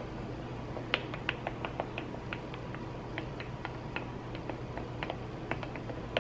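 A wooden stirrer tapping and clinking against the inside of a glass mug of hot coffee as it is stirred. The light, irregular clicks come a few a second, starting about a second in.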